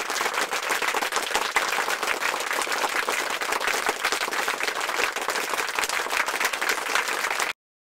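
Charcoal and wood fire under a whole pig spit-roasting as lechon, crackling and sizzling in a dense, even patter of tiny pops as fat drips on the coals. It cuts off suddenly near the end.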